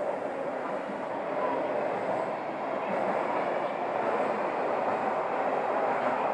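Toei 12-000 series linear-motor subway train running, a steady rush of wheel and rail noise that grows slowly louder.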